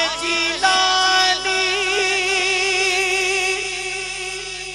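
A man singing a naat into a microphone with no instruments: a short phrase, then one long wavering note that slowly fades near the end.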